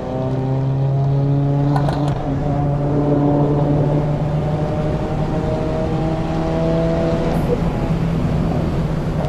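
2024 Subaru WRX's turbocharged 2.4-litre flat-four pulling under throttle, its pitch climbing slowly through a gear after a brief break at the start.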